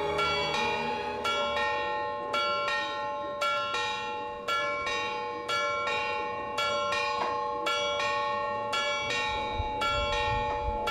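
Church bells ringing: a long run of strikes on bells of several pitches, coming at uneven intervals, each note ringing on and overlapping the next.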